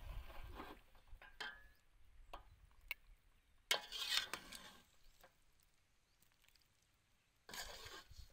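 Metal ladle scraping and knocking inside an aluminium soup pot as soup is ladled into a bowl: a few light clinks, a louder scrape and slosh about four seconds in, and another near the end.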